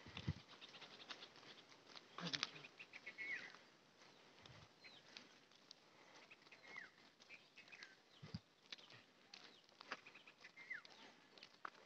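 Faint birds chirping, with a few short calls sliding downward, over a very quiet background. A few soft low thumps can also be heard.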